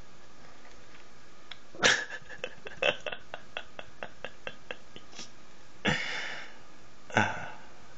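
Young kittens at play on a hardwood floor: three short, sharp hissing spits, about two seconds in, near six seconds and just after seven seconds. Between the first two comes a run of quick light clicks, about five a second.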